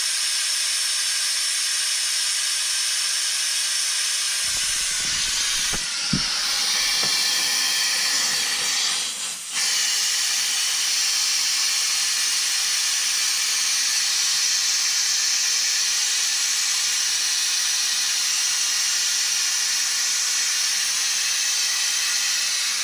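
Compressed air hissing steadily out of an air compressor tank's automatic drain valve, which is leaking or stuck open, so the tank cannot build pressure. A few low knocks come about five to six seconds in, and the hiss briefly drops about nine seconds in.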